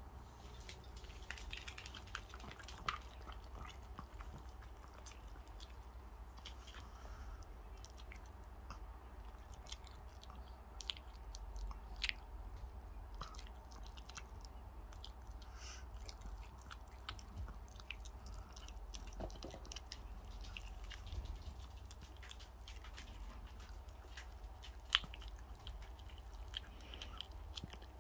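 Small dog chewing and biting a piece of raw chicken, its teeth working on the meat and bone with irregular wet clicks and crunches.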